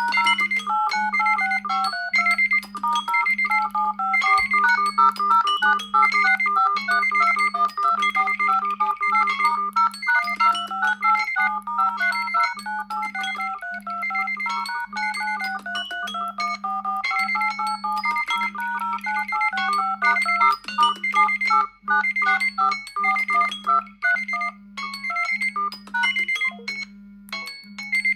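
Mobile phone ringtone playing: an electronic melody of short, bright notes over a low tone pulsing about once a second and a high beep repeating with it, with a brief pause near the end.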